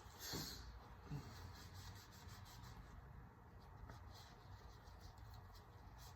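Near silence, with two short faint sounds in the first second or so, the first a brief falling squeak.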